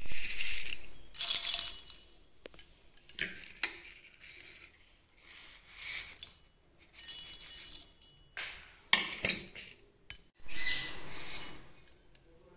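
Whole black peppercorns and fennel seeds tipped from a steel plate into an empty steel mixer-grinder jar: the peppercorns rattle and clink on the steel, and the plate and jar clank together, in several short bouts.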